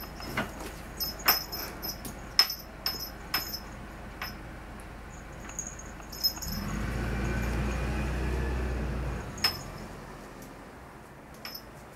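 A small bell jingling in quick, irregular shakes with light knocks as a kitten bats and tugs at a hanging felt ornament; the jingles thin out after about four seconds, with one more near the end. A steady low rumble runs for about three seconds past the middle.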